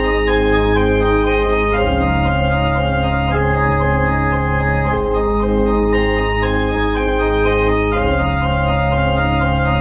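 Organ playing slow, sustained chords, with the bass note and harmony changing about every three seconds.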